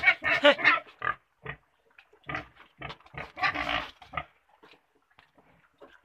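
Sow and her three-week-old piglets in a pen: short pitched squeals in the first second, then scattered grunts, with a harsher grunt about three and a half seconds in.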